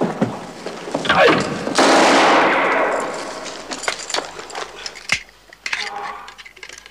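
Gunfire: scattered sharp shots and clanks, and a loud blast about two seconds in that dies away over a couple of seconds.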